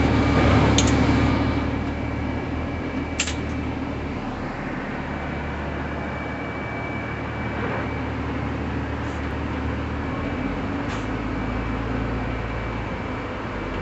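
School bus engine running, heard from the driver's seat inside the bus: a steady low hum with a faint high whine, and a few short clicks.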